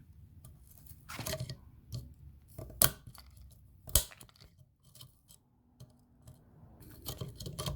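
Brittle plastic mounting tabs being snapped off with pliers: a few sharp cracks, the two loudest about three and four seconds in, with small clicks and handling noise between them.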